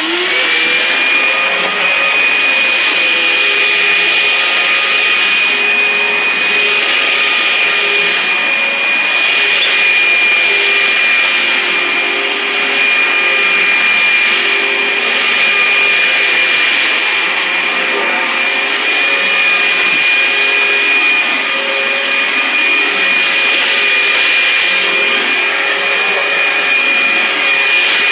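Sanitaire Quiet Clean commercial upright vacuum cleaner spinning up at the very start, then running steadily with a high, even whine.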